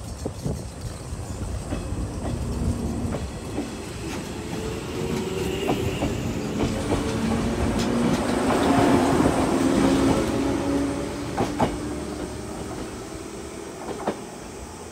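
A 115 series electric multiple unit pulling away and accelerating past: its motors hum with a pitch that slowly rises, and its wheels click over rail joints. It is loudest about nine seconds in, then fades as the train draws away.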